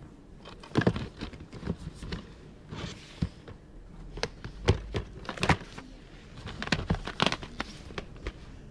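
Irregular clicks, knocks and rustling of things being handled and moved about, with no clear rhythm.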